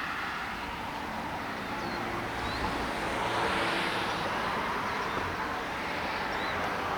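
Steady road and engine noise from a moving car, swelling a little about halfway through.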